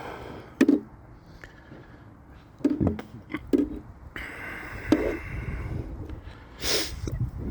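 Fireworks going off around the area: about five sharp bangs and cracks, spread out at irregular intervals over a low rumbling background.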